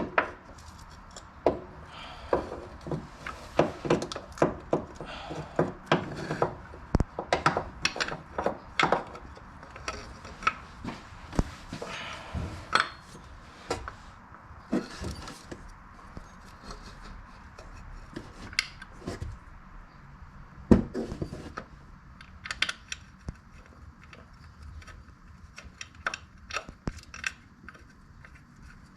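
Irregular metallic clinks, knocks and light scraping as a replacement water pump is worked into place from beneath the engine, busier in the first half and sparser later on.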